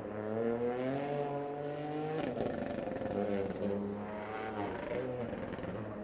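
Toyota Gazoo Racing rally car's engine under power. Its note rises for about two seconds, drops sharply at an upshift, then holds a lower, wavering note.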